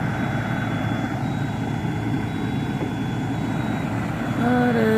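Diesel engine of a Hyundai Robex 220-7 crawler excavator running steadily. A person's voice comes in near the end.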